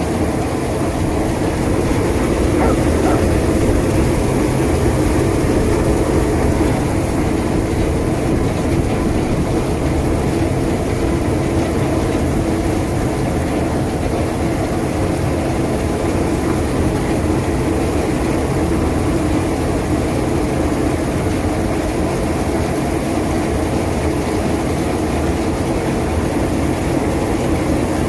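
Brush roller onion peeling machine running: a steady mechanical drone from its motor and spinning brush rollers, with onions tumbling and rubbing against the brushes.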